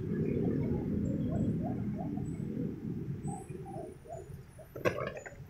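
Low street-traffic rumble from passing vehicles, fading away over a few seconds, with one sharp click about five seconds in.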